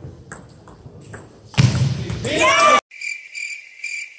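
A table tennis ball clicks off bats and table in a few quick strokes. Then comes a loud stretch with a shout, the loudest part, which cuts off abruptly into a high, even chirping at about four chirps a second with nothing beneath it.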